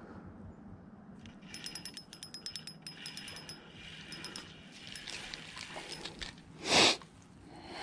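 Spinning reel being cranked as a small fish is reeled in: a rapid, even clicking from the handle and gears for about two seconds, then softer clatter. Near the end comes one short, loud burst of noise.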